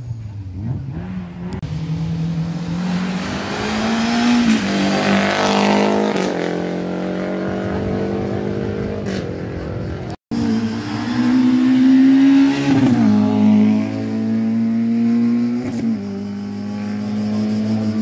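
Race car engines running at high revs on a slalom course. The engine note climbs and then drops back with gear changes. A car passes close about five seconds in, and after a sudden cut about ten seconds in another engine runs hard, its pitch falling about three seconds later.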